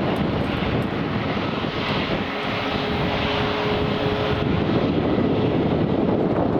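Airbus A320neo jet engines running with a steady, loud rush of noise, and a thin steady whine showing for a couple of seconds in the middle.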